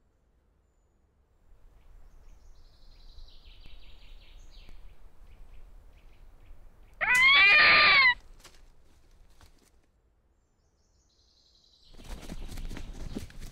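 Faint birdsong, then a single loud animal call about a second long that rises and falls in pitch and cuts off abruptly. Near the end, a fast run of sharp knocks and clatter starts.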